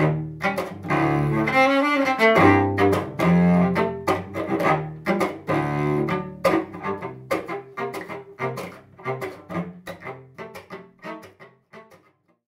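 Cello played with the chop technique: pitched bowed notes with sharp percussive bow chops on the strings in a steady rhythmic groove, gradually fading out near the end.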